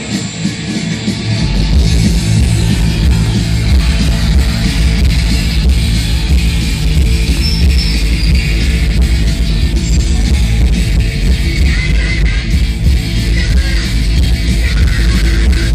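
Loud rock music with a heavy low end that comes in about a second and a half in.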